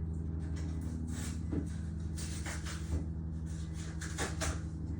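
Several light clicks and knocks as cut stone slabs are handled and set down, over a steady low hum.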